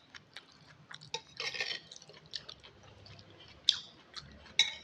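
Wet chewing of instant noodle soup with many small mouth clicks, a short slurp about one and a half seconds in, and two sharp louder clicks near the end.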